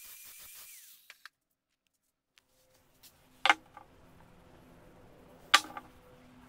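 Angle grinder cutting a steel washer, its whine cutting off and falling in pitch as the disc spins down within the first second. After a silent gap, two sharp metallic clicks about two seconds apart as broken steel hammer-drill bits are handled.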